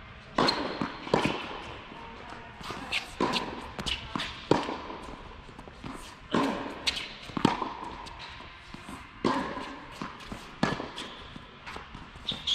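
A tennis rally on an indoor hard court: the ball struck by rackets and bouncing, a sharp pop every second or so, echoing in the large hall, with short high squeaks from sneakers on the court surface.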